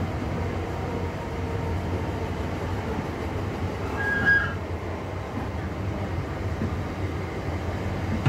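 Interior running noise of a Class 323 electric multiple unit on the move: a steady low rumble of wheels on track. A brief high squeal comes about four seconds in.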